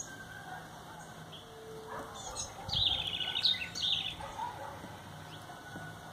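Small songbirds chirping at a feeder: a few quick series of high chirps about two to four seconds in.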